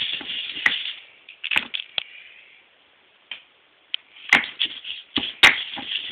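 Pestle crushing and grinding fresh mint leaves in a mortar: gritty scraping and crackling, a short pause about halfway, then two sharp knocks of the pestle against the bowl before the grinding starts again.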